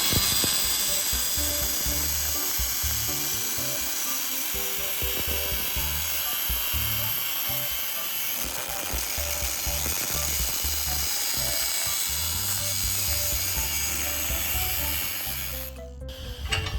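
Background music over the steady, high-pitched noise of a power tool at work; both cut out abruptly near the end.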